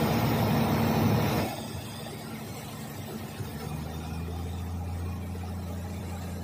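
Light single-engine propeller plane's piston engine and propeller heard inside the cockpit on final approach. The noise is loud at first, then drops about a second and a half in to a steady low drone.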